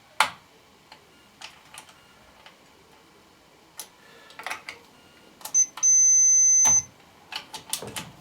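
Multimeter continuity beeper giving a short chirp and then a steady high beep lasting about a second, among scattered clicks and taps of the test probes. The beep shows the main switch is conducting between the terminals being probed.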